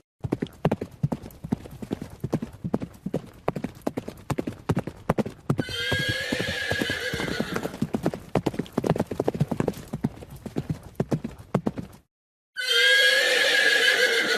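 Horse hooves clip-clopping in a quick, irregular stream of knocks, with a horse whinnying about halfway through. The hoofbeats stop near the end, and after a brief silence a second, louder whinny follows.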